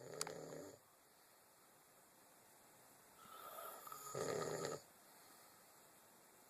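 A man snoring in his sleep: the tail of one snore right at the start, then one full snore about three to five seconds in that builds and is loudest near its end.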